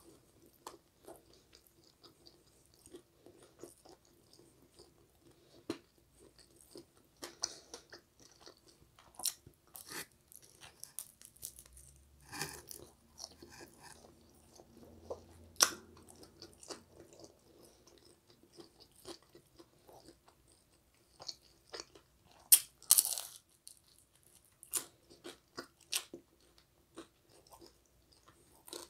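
Close-miked chewing and crunching of pizza crust, with scattered small crackles and mouth clicks. There are a few louder crunches, one about halfway through and a cluster about two-thirds in.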